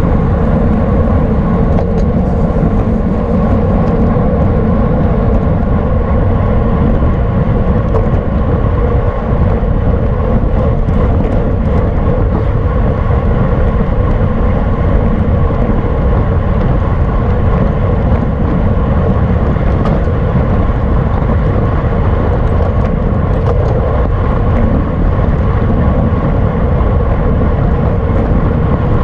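Steady wind rush over the microphone of a camera riding on a racing bicycle at speed.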